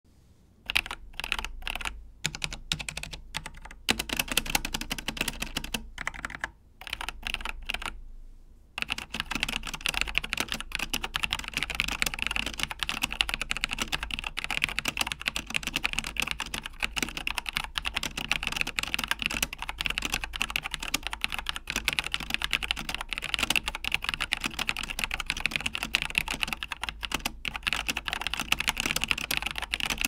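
Logitech Pro X TKL Lightspeed mechanical keyboard with GX Brown tactile switches being typed on: scattered keystrokes with short pauses at first, then steady fast typing from about nine seconds in.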